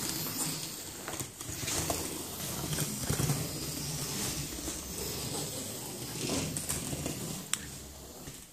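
Scalextric 4x4 Jeep slot car running along a plastic track, its small electric motor buzzing and the car rattling, with a few sharp clicks and the sound rising and falling as it travels.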